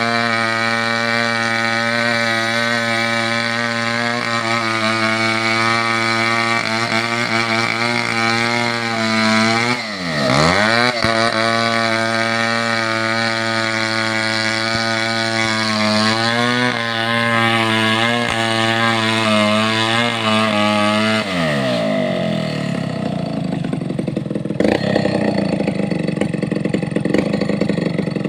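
Chainsaw engine running at high revs, its pitch dipping sharply and recovering about ten seconds in, then falling off about twenty-one seconds in to a lower, rougher running before revving up again near the end.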